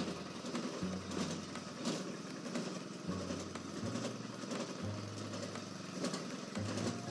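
Grass crusher machine running and chopping fodder. A steady mechanical clatter is joined by a low hum that steps up and down every second or so.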